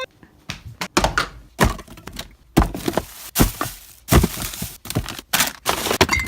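A rapid, irregular string of a dozen or more thuds and cracks, as of things being struck and smashed.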